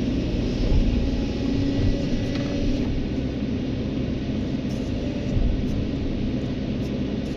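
Heavy diesel engine of a Kobelco SK200 hydraulic excavator running steadily at work, with a constant drone and a few brief low thuds.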